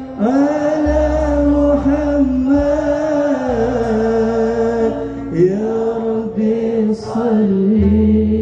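A young man singing a qasidah through a microphone and sound system, drawing out long, melismatic held notes that bend and step down in pitch, over low bass notes.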